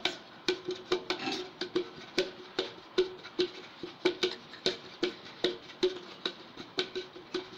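Hand tapping the side of a greased, floured 8-inch metal cake pan to spread the flour, in an even rhythm of about two or three taps a second, each with a short metallic ring.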